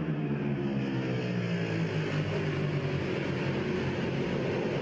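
Racing motorcycle engine running at high revs, its pitch easing down over the first two seconds and then holding steady.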